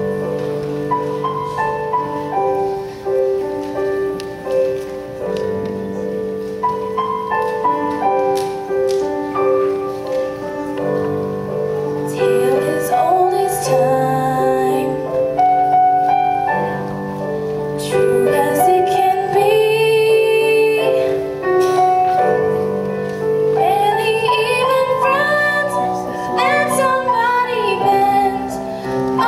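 A song performance: backing music holds long sustained chords, and a girl's solo voice sings a melody over it from about twelve seconds in.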